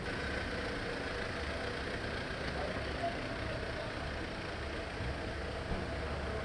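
Engines of large SUVs in a motorcade running steadily, a low hum, as the vehicles pull away.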